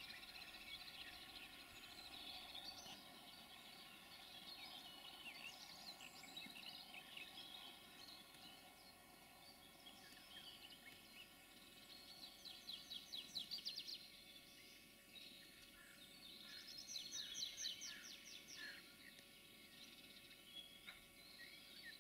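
Faint woodland birdsong: several small birds chirping, with two fast trills of rapidly repeated notes in the second half.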